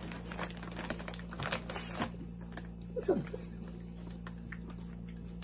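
Crunching of Ruffles Ridge Twists potato chips being chewed: a quick run of crisp crackles over the first two seconds, then scattered ones.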